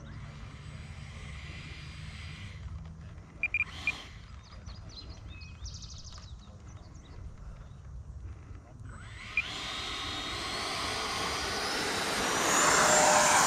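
The 12-blade 80mm electric ducted fan of a Freewing Avanti RC jet spooling up on the runway: a whine that rises in pitch from about two-thirds of the way in and grows loud near the end.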